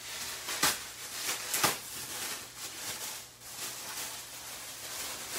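Plastic bag and wrapping rustling and crinkling as a wrapped package is lifted out and handled, with two sharper crinkles about two-thirds of a second and nearly two seconds in.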